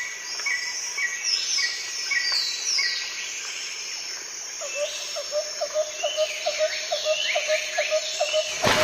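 Birds singing and calling: repeated short chirps and quick sweeping whistled notes, with a steady high insect-like hiss underneath. About halfway in, a lower chirp starts repeating roughly three times a second.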